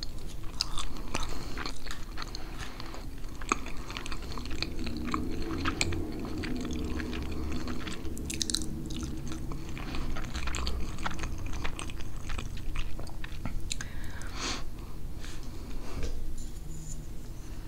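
Close-miked chewing of a mouthful of pernil (roast pork) and rice, with many small wet mouth clicks.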